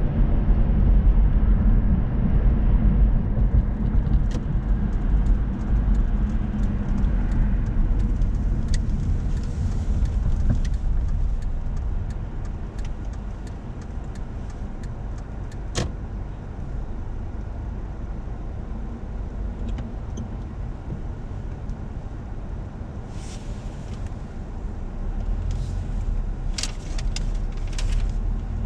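Car driving, heard from inside the cabin: a steady low rumble of engine and tyres, louder in the first several seconds and easing after about twelve seconds as the car slows, with a few sharp clicks and knocks scattered through.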